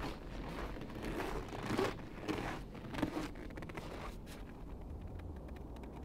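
Footsteps crunching through packed snow, with clothing rustling, several steps in the first few seconds and growing fainter after about four seconds.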